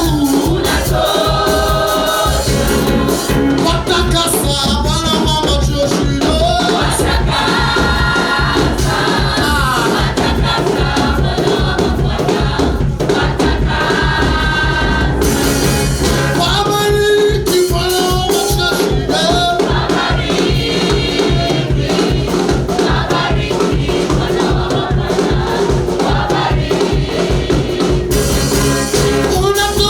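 Gospel praise music: a group of voices singing over a band with a steady, even beat.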